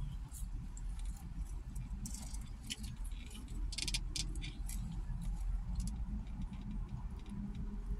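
Crinkling and rustling of a paper fast-food sandwich box and wrapper being handled, in short scattered crackles, densest about halfway through, over the steady low hum of the car cabin.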